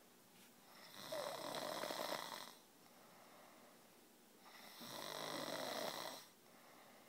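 A man snoring in his sleep: two snores, each about a second and a half long, about three and a half seconds apart.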